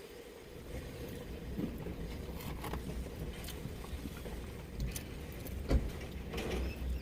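Low rumble of a motor vehicle, a little louder after about a second, with a few light clicks and knocks, the sharpest one near the end.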